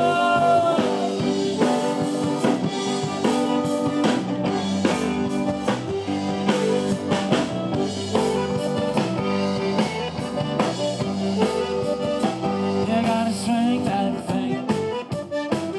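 Background music: an instrumental stretch of a song between sung verses, with drums keeping a steady beat.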